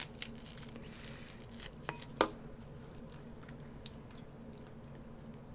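A few faint, sharp clicks and taps from a utensil handling food in a takeout container, over a faint steady hum.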